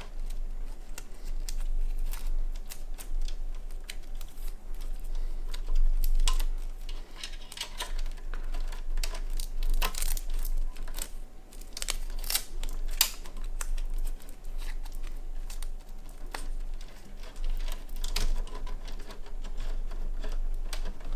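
Hands working cables and parts inside a PC case: irregular clicks, taps and rustles, some closely bunched, others a second or more apart.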